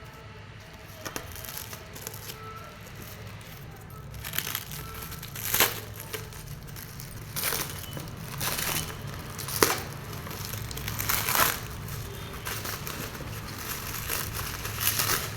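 Packaging crinkling and rustling as it is handled and opened. The bursts come repeatedly from about four seconds in, with a couple of sharp clicks among them.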